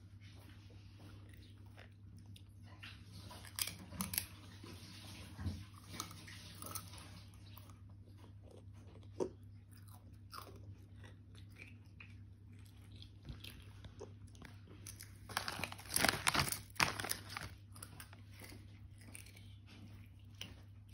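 A toddler biting and chewing Keogh's sweet chilli and red pepper potato crisps: scattered crunchy bites, with a louder spell of rapid crunching about three-quarters of the way through. A faint steady low hum runs underneath.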